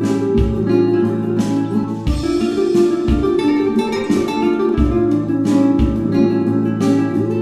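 Background music led by a plucked and strummed acoustic guitar, with a recurring low thud.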